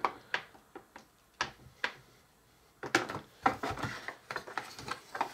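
Plastic clicks and knocks from a Play-Doh Burger Builder press as its lever is pushed down onto the dough and lifted again, with a few separate taps at first and a busier run of clicking and rattling about three seconds in.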